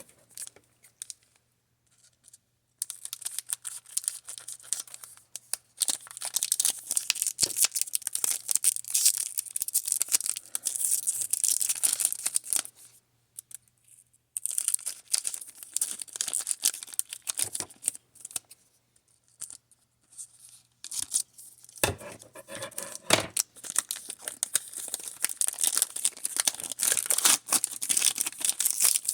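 A foil Pokémon booster pack wrapper being torn open and crinkled by hand, in three long spells of crackling rustle with short pauses between them.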